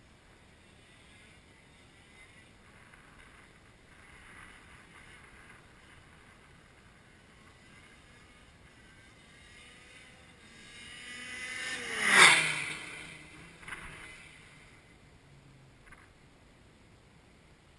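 Shifter kart's two-stroke engine approaching at speed and passing close by about twelve seconds in, its pitch dropping sharply as it goes past. A short burst of engine noise follows a second and a half later as it moves away and fades.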